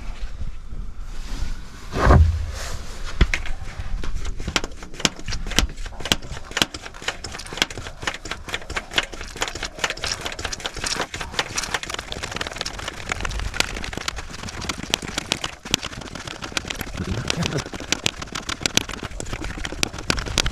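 Excavator diesel engine cranking over on its starter without catching, with a rapid clattering that goes on after a heavy thump about two seconds in; the fuel system has lost prime and is being bled.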